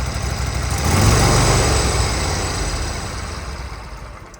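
Walker ride-on mower's 23 hp Kohler V-twin engine running, now that its wiring harness connections are fixed and it has spark again. It gets louder about a second in, then fades away over the last couple of seconds.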